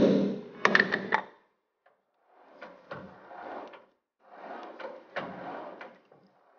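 Rawhide-faced mallet gently tapping a metal bar held in a lathe's three-jaw chuck: two light knocks, the first the loudest, knocking the bar's high spot back into true. Then the chuck is turned by hand twice, a soft rattling, clicking noise from the chuck and spindle as the runout is rechecked.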